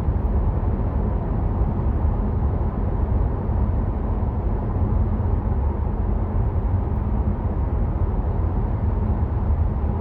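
Steady cabin noise of a BMW F07 5 Series GT 20d on the move: low road and engine rumble with a light tyre hiss, even throughout.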